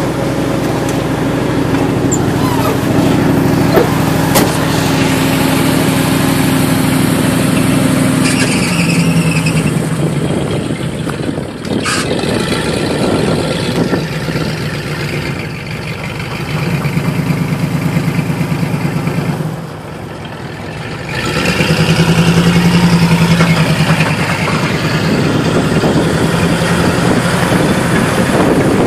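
Ford pickup truck's engine running under load as it backs a seaplane on a float cradle down a launch ramp, its pitch stepping up and down with the throttle several times; it is loudest about three quarters of the way through.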